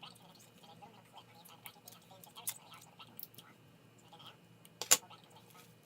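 Small clicks and taps of hand tools and phone parts being handled during a phone screen repair, with one sharp click just before the end.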